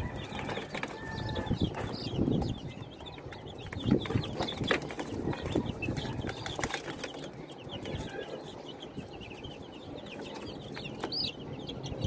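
Young chicks peeping continuously, many high thin chirps overlapping, with a few short rustles and knocks from their movement in a wire-mesh cage.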